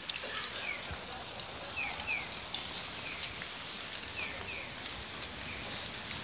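Short falling electronic bird-like chirps in a regular alternation of one chirp, then two, each group about a second and a quarter apart: the 'piyo… piyo-piyo' call-and-answer of a Japanese pedestrian-crossing audio signal. Under it runs a steady outdoor hiss.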